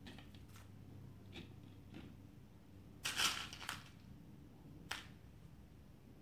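Beads and a beaded piece handled on a tabletop: faint small clicks, a short louder rattling clatter about three seconds in, and one sharp click near five seconds.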